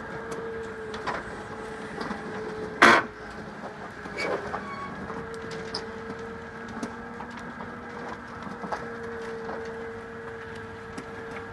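Electric roller shutter opening: its motor runs with a steady hum while the curtain rolls up, with light clicking from the slats. One sharp, loud knock comes about three seconds in.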